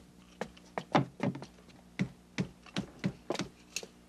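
Wooden chairs and stools being set down on wooden tables as they are stacked up, a string of irregular wooden knocks and clatters, about a dozen in all.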